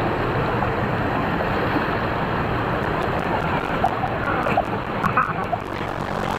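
Steady rushing and splashing of water in a shallow water-park pool, heard close to the waterline.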